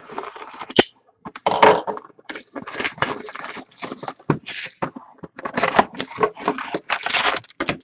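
A box of Fleer Showcase hockey cards being torn open: its packaging ripped and crinkled by hand in a run of short, irregular tears.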